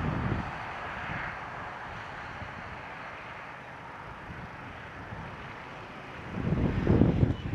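Wind buffeting the microphone over a steady rushing hiss, with gusts at the start that ease off and a stronger gust returning near the end.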